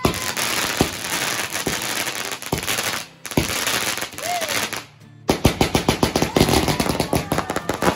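Multi-shot firework barrage firing: hissing and crackling with a sharp bang about once a second, a brief lull near the middle, then a fast run of many cracks close together.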